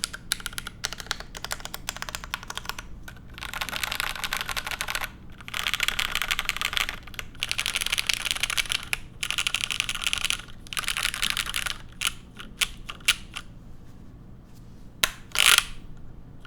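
Mechanical keyboard with lubed Cherry Hyperglide Black linear switches and GMK keycaps being typed on. A few separate keystrokes come first, then several bursts of fast typing, then slower scattered presses and one louder clack near the end.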